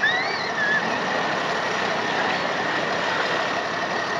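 Engines of 6x6 amphibious ATVs running steadily at low speed, with a steady high whine.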